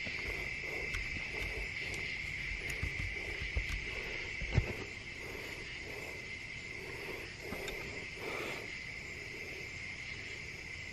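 A steady chorus of crickets chirring without a break, with soft, evenly paced footsteps through grass and a single sharp bump about four and a half seconds in.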